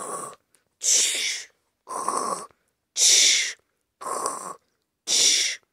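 A person voicing exaggerated snoring by mouth: rhythmic, breathy snores about once a second, alternating drawn-in and blown-out breaths.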